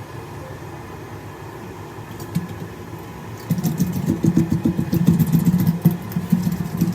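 Overhauled bore well machine generator engine running with a low rumble, then about halfway through becoming much louder with rapid, uneven firing knocks.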